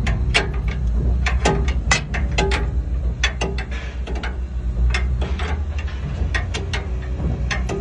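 Large natural gas generator set running with a steady low hum, under a string of irregular sharp clicks, several a second.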